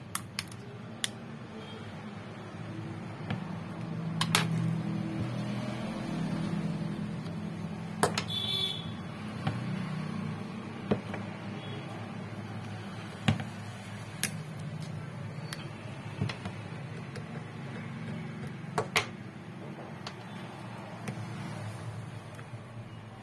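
Sharp plastic clicks and snaps, about a dozen spread irregularly, as the clips of a Redmi Note 11i's plastic mid-frame are pried loose from the phone by hand and with an opening tool, over a low steady hum.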